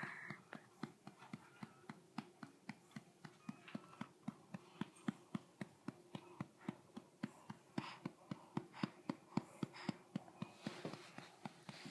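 A hand patting a baby's back steadily, about three to four pats a second, to bring up a burp.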